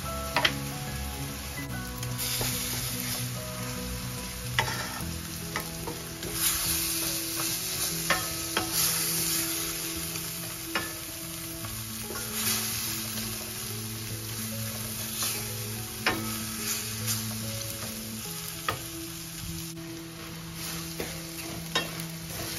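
Ground pork sizzling in oil in a stainless steel frying pan while a wooden spatula stirs and scrapes it, with scattered sharp clicks of the spatula against the pan.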